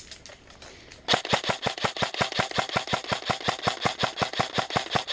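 Airsoft electric rifle firing a long full-auto burst, about ten shots a second, starting about a second in and lasting about four seconds.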